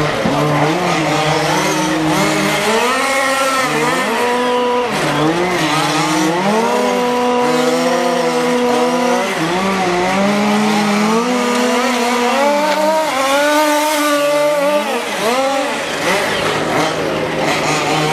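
Several 1/5-scale MCD X4 RC rally cars with small two-stroke petrol engines running at once, each revving up and down as they accelerate and lift through the course, their overlapping pitches rising and falling throughout.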